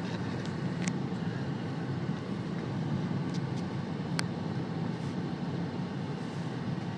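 Steady rumble of a car driving, heard from inside the cabin, with a few faint clicks and a sharp tick about four seconds in.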